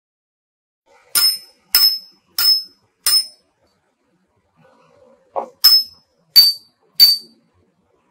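Seven sharp, high ringing strikes of a small bell-like chime, each fading quickly: four evenly spaced about two-thirds of a second apart, a pause with one short lower knock, then three more.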